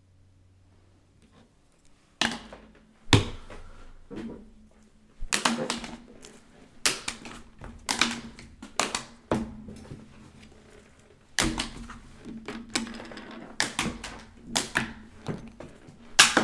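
A person's hands knocking and banging on a desk near the microphone: some twenty sharp, irregular strikes starting about two seconds in.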